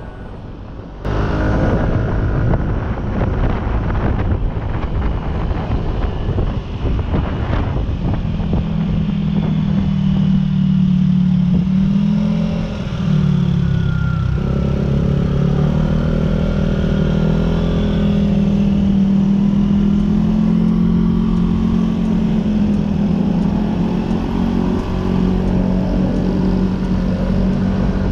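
Motorcycle engine running at a steady cruise on the move, with wind rushing past. Its drone dips and wavers briefly about halfway through, then holds steady again.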